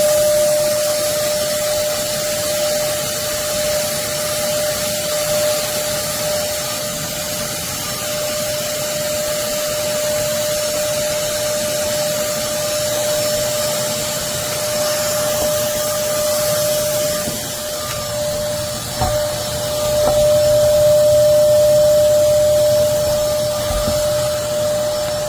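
Hoover Commercial PortaPower canister vacuum cleaner running steadily: a rush of air with a steady whine over it. It gets louder and fuller for a few seconds about three-quarters of the way through.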